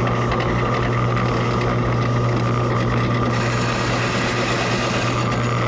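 Drill press motor running steadily with a 2-inch hole saw in the chuck. From a little past halfway, the saw bites into a thin piece of wood, adding a brighter, noisier cutting sound over the hum.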